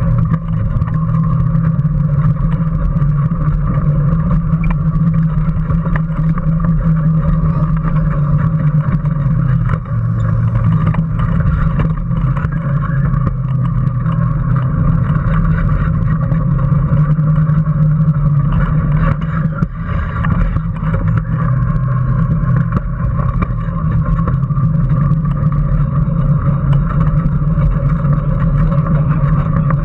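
Electric drive of a Power Racing Series kart (a modified ride-on toy car) running at speed, heard from a camera mounted on the car: a loud, steady drone that eases briefly about ten seconds in and again around twenty seconds.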